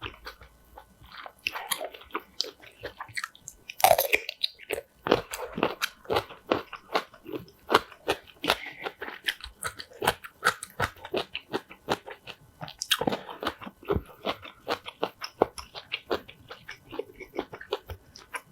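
Close-miked crunching and chewing of crisp kimchi: a steady run of crisp crunches, about two a second, with a louder bite about four seconds in.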